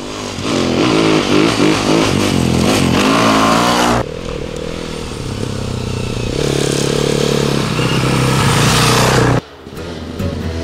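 Dirt bike engines revving as riders approach on the trail, the pitch rising and falling with the throttle. The sound changes abruptly about four seconds in to a steadier engine note, and breaks off again near the end.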